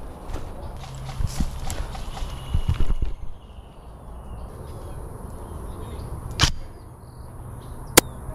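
Airsoft DMR firing two single shots about a second and a half apart, each a short sharp crack, the second the louder. Before them, for about the first three seconds, there are low thuds and rustling of movement.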